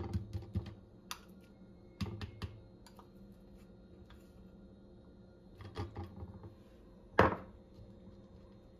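Metal spoon clinking and scraping against a bowl and plate while refried beans are spooned onto sopes, in a few short clusters of light clicks. One louder knock about seven seconds in, as the bowl is set down on the counter.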